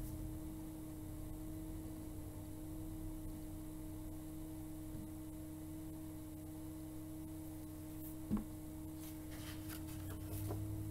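Quiet room tone with a steady low electrical hum. A single faint knock about eight seconds in and light handling sounds of the book near the end.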